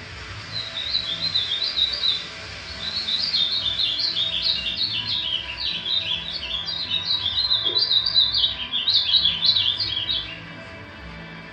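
Songbird song of rapid, jumbled high chirps: a short phrase at first, then after a brief pause a long unbroken run of about seven seconds that stops near the end.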